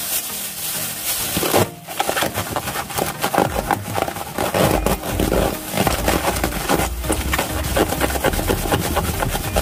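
Thin plastic bag crinkling and rustling as eggplant pieces are shaken in it with starch powder: a dense run of crackles that drops for a moment and then comes back louder and fuller about two seconds in.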